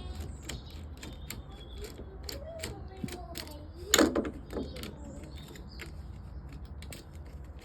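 Irregular small metallic clicks and clinks of hand tools and nuts as a bus bar is unbolted from an electric van's battery pack, with one louder knock about four seconds in.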